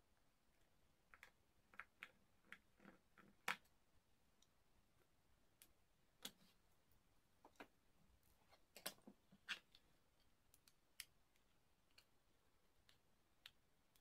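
Near silence broken by scattered small, sharp clicks and taps from a precision screwdriver and an iPhone 5 being handled on a tabletop, the loudest about three and a half seconds in and a cluster around nine seconds.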